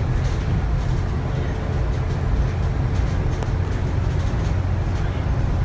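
Cabin noise aboard a Volvo B9TL double-decker bus: the six-cylinder diesel and drivetrain give a steady low rumble, with faint rattles and clicks from the interior.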